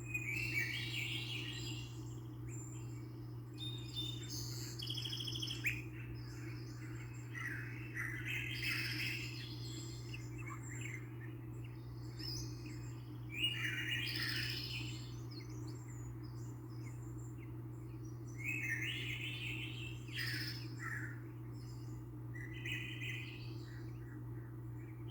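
Bird chirps and tweets in short irregular bursts every few seconds, over a steady low hum.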